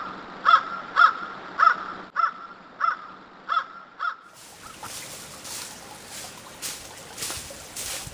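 An animal call repeated about every half second, eight times, then stopping. After that come footsteps shuffling through dry leaf litter on a slope.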